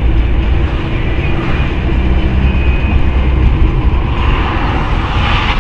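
Driving noise heard inside a moving car's cabin: a steady low engine and road rumble, with a louder hiss swelling up near the end.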